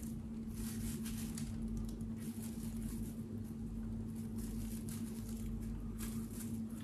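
Cling film crinkling and rustling under rubber-gloved hands as a soft lump of paste is rolled roughly into a stick shape, with a steady low hum underneath.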